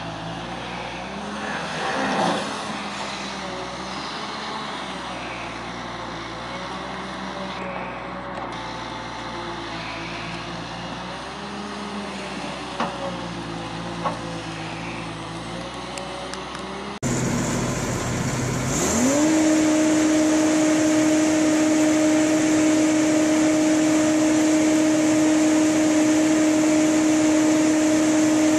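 Amphibious excavator's diesel engine running under load while it digs, its pitch wavering, with a few faint knocks. About two-thirds of the way through the sound switches to a whirring hum from a trencher wheel attachment's drive, which rises in pitch for about two seconds and then holds steady.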